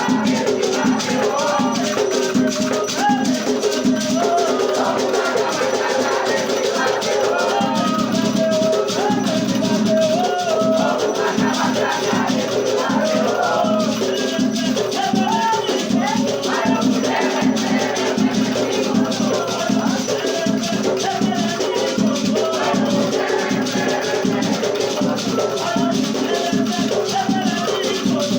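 Afro-Brazilian batuque ritual music: drums beaten in a steady driving rhythm with a shaken beaded gourd rattle (agê), and voices singing over them.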